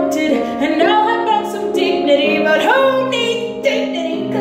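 A woman singing a musical-theatre song with piano accompaniment, her voice sliding between held notes over steady sustained chords.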